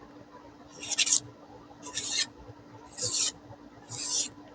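Four cutting strokes of the SOG PowerPint multitool's small, very sharp knife blade, each a short hiss, about a second apart.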